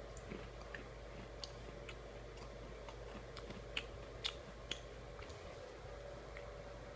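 Faint scattered clicks and ticks over a low steady hum, with three sharper clicks in quick succession a little past the middle.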